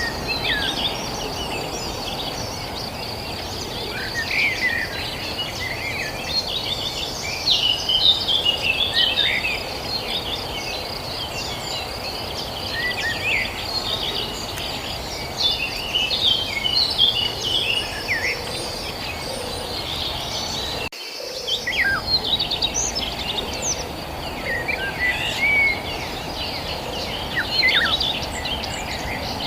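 Many songbirds chirping and twittering over a steady high insect trill, with a constant low rushing background noise. The sound cuts out briefly about two-thirds of the way through, then resumes.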